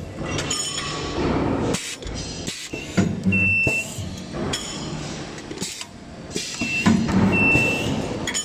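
Automatic nut spot welding machine running with its vibratory bowl feeder: nuts rattle steadily in the feeder bowl. About every four seconds the welder cycles, each time with a loud clunk and a short hum, followed by a brief high tone.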